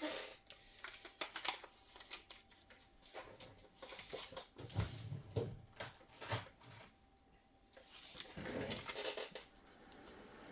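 Irregular small clicks, taps and rustling of small parts and tools being handled at a workbench, with a longer rustle near the end.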